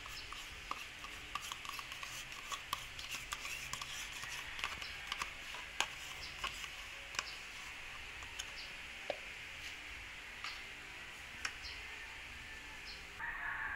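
Yogurt being scraped out of a plastic cup onto avocado in a plastic chopper bowl: faint scraping with scattered light clicks and taps.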